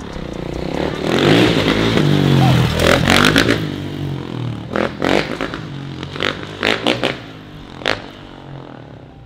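2013 Kawasaki KX450F four-stroke single-cylinder dirt bike engine revving and accelerating, its pitch rising and falling as it goes past, then fading as the bike rides away. Several short, sharp bursts follow in the second half.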